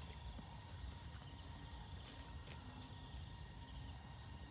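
Evening insect chorus: a steady, high-pitched pulsing trill, with a low rumble underneath.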